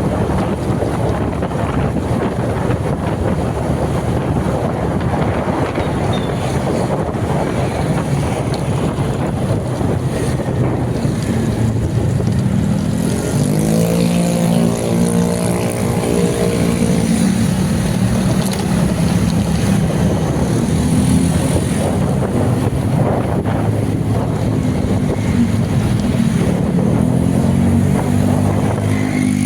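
Wind buffeting the microphone over a running vehicle's engine; about halfway through, the engine's pitch rises as it speeds up and then holds steady.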